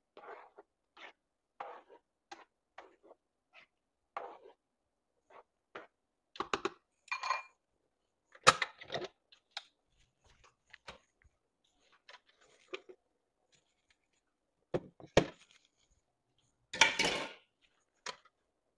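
Spatula scraping and tapping against a frying pan while food is stirred, in short scattered strokes, with a few louder knocks and clatter of kitchen things later on.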